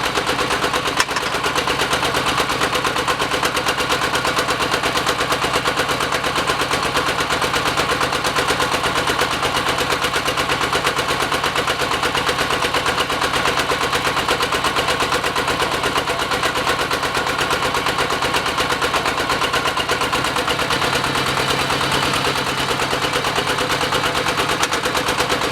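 Diesel engine of a hydraulic water well drilling rig running steadily and loudly, with a fast, even chugging pulse.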